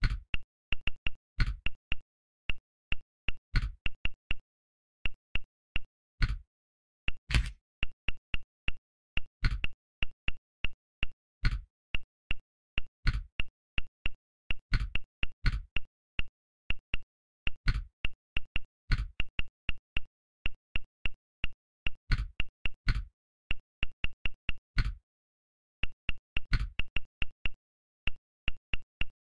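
Phone on-screen keyboard key-press clicks as text is typed: an irregular run of short, high ticks, several a second, mixed with louder, fuller taps, with a few brief pauses.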